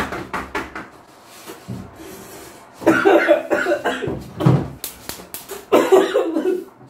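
A man coughing hard in two fits, the first about three seconds in and the second near the end, from the heat of a habanero chile he has just eaten.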